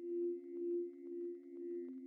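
Background music: a low sustained drone that swells and fades about twice a second, with faint light ticks over it.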